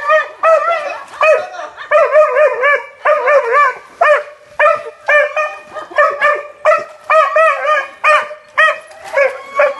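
Labrador barking and yelping at a gate in a quick, unbroken run of short, high-pitched calls, a few a second, each rising and falling in pitch.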